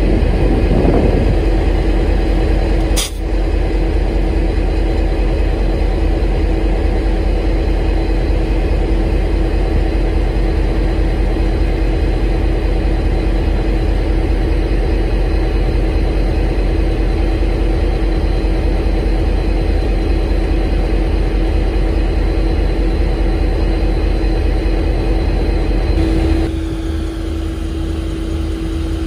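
V/Line N-class diesel locomotive's EMD two-stroke V12 engine running steadily, with a sharp click about three seconds in. Near the end the hum drops a little in level and changes tone.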